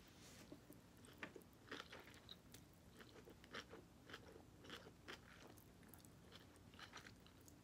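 Faint mouth sounds of a person eating instant ramen noodles with chopsticks: quiet chewing and slurping, a loose string of small wet clicks.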